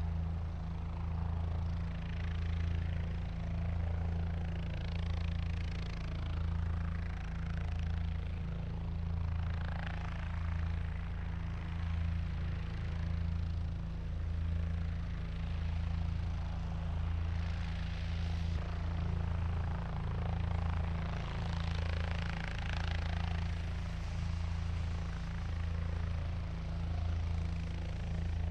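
Helicopter flying sound: a steady low rotor drone that pulses evenly, with a rushing noise above it that swells and fades now and then.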